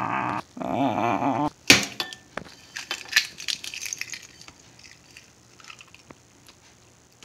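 A hen's egg cracked with one sharp crack about 1.7 s in. Soft clicks of shell and crinkling of a plastic zip-top bag follow while the egg is pulled open and runs into the bag, fading away. Before the crack there is a brief wordless vocal sound.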